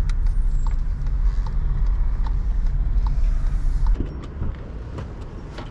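Steady low rumble inside a moving Volkswagen's cabin, with faint small ticks at a regular pace. About four seconds in it cuts off abruptly to quieter street background with a few small clicks.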